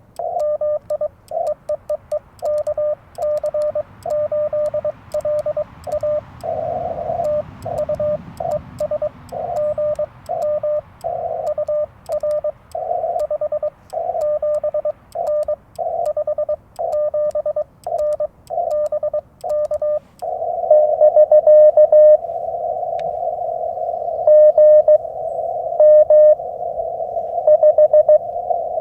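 Morse code through a Yaesu FT-891 transceiver: for about twenty seconds a steady pitched sidetone keys on and off in clean dots and dashes, with faint clicks of the paddle key. Then the receiver comes back: a band of hiss through the narrow CW filter, with another station's Morse tones keyed over it.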